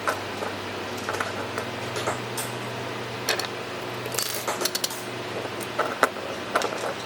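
Scattered light clicks and clinks of small metal and plastic socket parts being handled, with a cluster of quick clicks a little past halfway, over a steady low hum.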